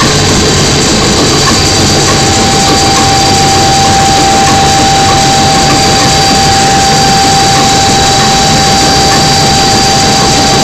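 10-cylinder Stork-Werkspoor marine diesel engine running, loud and steady, heard up close in the engine room: a dense mechanical clatter with steady whining tones over it.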